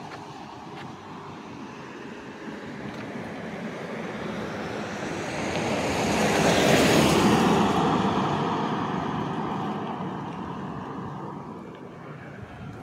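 A vehicle passing by: a rushing noise swells slowly to a peak about seven seconds in, then fades away.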